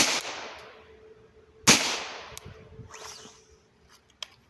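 Two .22 LR rifle shots from a Ruger 10/22, about 1.7 seconds apart, each sharp crack followed by a fading echo.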